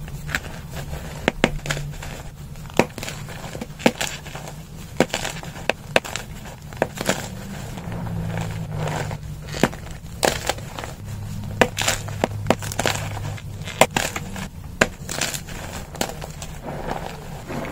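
Blocks of pearly gym chalk (magnesium carbonate) crushed and crumbled in the hands, giving sharp, irregular crisp crunches with softer powdery crumbling between them. A low steady hum runs underneath.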